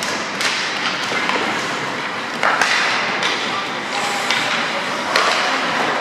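Ice hockey play: skates scraping across the ice, with sharp knocks of sticks and puck, the clearest about two and a half and five seconds in.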